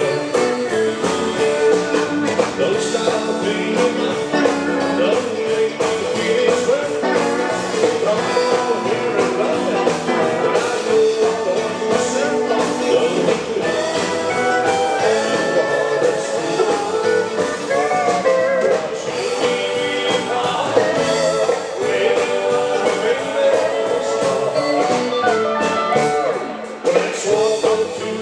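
Live band playing a number on stage with electric guitars, accordion and keyboards, a steady beat and vocals.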